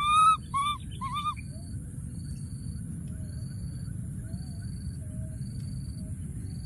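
Baby monkey giving three high, arching calls in quick succession over the first second and a half, crying out for its companion. After them a steady high drone continues, with a short high note repeating about once a second.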